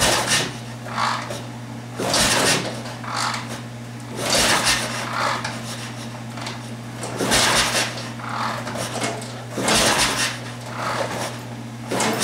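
Triumph 750 parallel-twin engine being turned over repeatedly for a compression test, with the gauge fitted and the throttle wide open. There are about five strong bursts of noise roughly every two and a half seconds, each followed by a weaker one, over a steady low hum.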